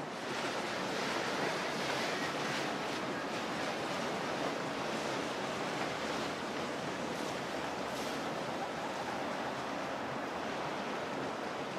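Steady rush of water and wind noise, like waves and boat spray, with no distinct tones or strikes.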